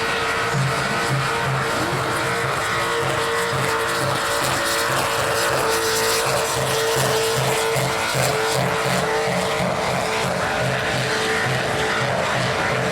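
Car doing a burnout: its engine held at steady high revs over loud tyre noise. Music with a steady pulsing beat runs underneath.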